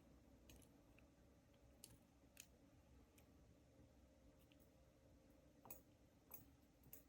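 Faint, scattered clicks of a lock pick working the pins inside an Ace 50mm laminated padlock, about five light ticks spread over several seconds.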